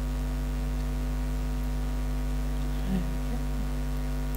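Steady electrical mains hum, an even drone with fixed tones that does not change.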